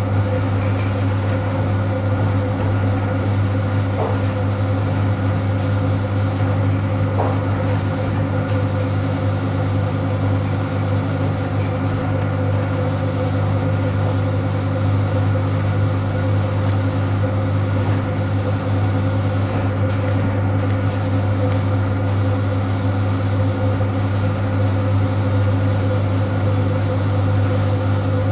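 ED9M AC electric multiple unit running, heard from inside the carriage: a steady low hum with running noise at an even level.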